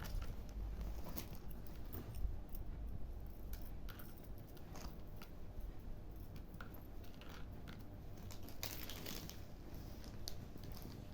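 A parcel being handled and opened: scattered small clicks and light crinkling of packaging, with a denser rustle about nine seconds in.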